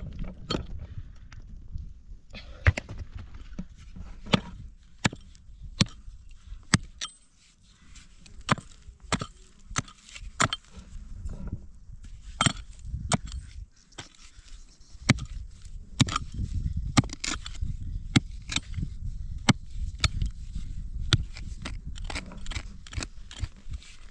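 A string of irregular sharp knocks and snaps, one or two a second, over a low rumble that drops away for a moment around seven seconds in and again around fourteen seconds in.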